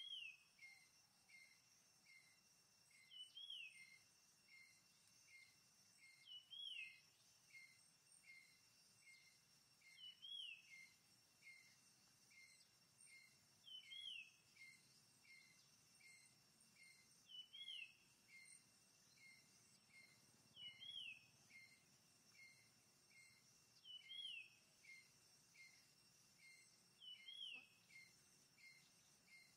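Faint forest ambience of bird calls. A short whistle that rises and falls repeats about every three and a half seconds over a run of short chirps about twice a second, with a steady high insect hum beneath.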